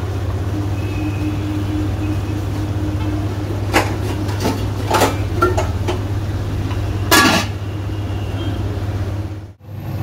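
Steady low hum in a kitchen with a few short knocks of kitchenware around a pot on the stove, the loudest a brief rattle about seven seconds in. The sound cuts out abruptly just before the end.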